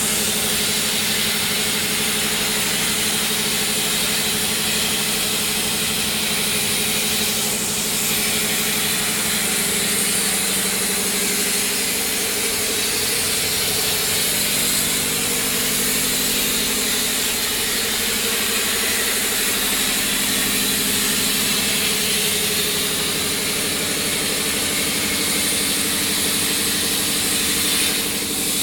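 CNC plasma cutting torch cutting through steel plate: a loud, steady hissing rush of the plasma arc and air jet, with a lower hum beneath that shifts in pitch now and then.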